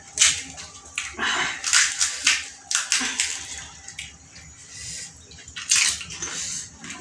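Person eating fiery-hot chilli with phuchka: several short, sharp hissing breaths and mouth noises, with a lull between about four and five and a half seconds in.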